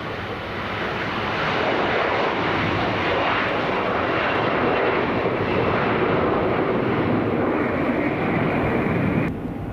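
Embraer E-Jet regional jet taking off, its twin turbofans at takeoff thrust giving a loud, steady roar that swells over the first second or two. The sound cuts off abruptly near the end.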